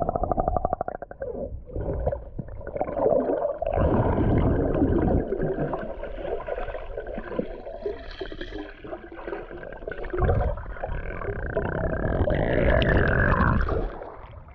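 Muffled water sound heard by a camera held underwater: uneven rumbling and gurgling swells, with a buzzing tone in the first second. It drops away near the end as the camera comes up out of the water.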